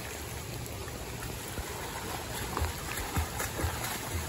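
Steady rush of fast-flowing floodwater in a swollen, muddy creek, with a few short low thumps in the second half.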